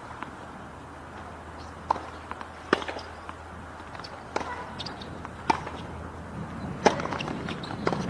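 Tennis ball pops: a ball bounced before the serve, then sharp racket strikes roughly once a second as the point is rallied, over a steady low hum.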